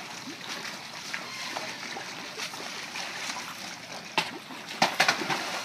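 Water splashing and churning as large fish thrash at baited lines in a pen, with a few sharp, louder splashes in the last second and a half.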